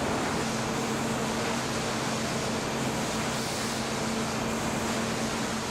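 Steady hum of running sawmill machinery: an even noise with a constant low drone.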